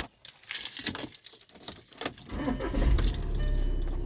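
Keys jangling and clicking in the ignition, then the 2013 VW Jetta TDI's 2.0-litre four-cylinder turbodiesel cranks and starts about two seconds in, rising briefly and settling into a steady idle.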